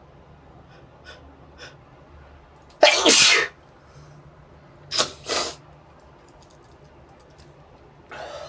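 A person sneezing hard once, about three seconds in: a sneeze brought on by tickling the nose with a brush. A couple of faint short breaths come before it, and two shorter bursts of breath follow about two seconds later.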